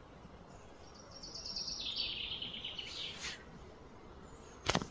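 A small bird singing a fast trill of rapidly repeated high notes that step down in pitch over about two seconds, over a steady outdoor background hiss. A single short sharp knock near the end.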